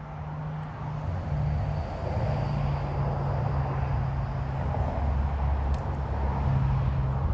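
An engine running with a low, steady hum that grows louder over the first two seconds and then holds.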